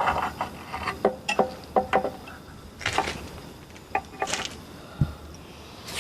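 Metal tools and engine parts handled: a run of short clinks and knocks, some of them ringing briefly, a couple of short hisses, and a dull thump near the end.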